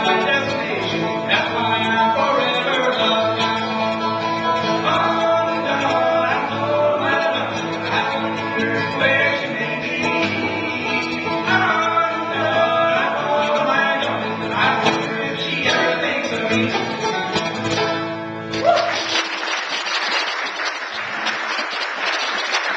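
Acoustic guitar and banjo duo playing a bluegrass-style tune, which ends about 19 seconds in. Audience applause follows.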